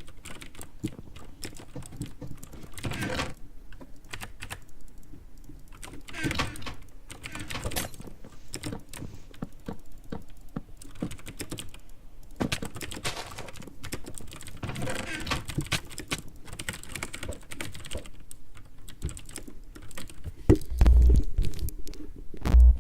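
Typing on a computer keyboard: a run of quick key clicks, with a few loud low thumps in the last couple of seconds.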